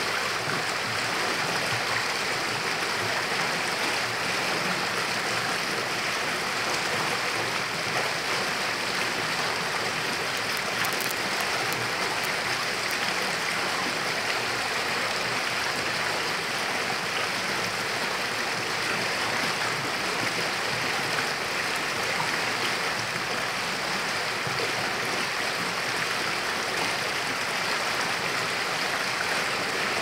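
Stream water pouring over rocks into a pool, splashing steadily with no change in level.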